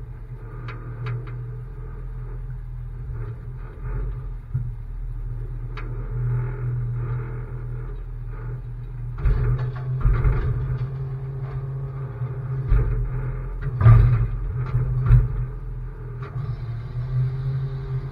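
Tow truck's engine running with a steady low rumble while the truck backs up slowly, with metal clanks and rattles from about nine seconds in, the loudest knock about fourteen seconds in.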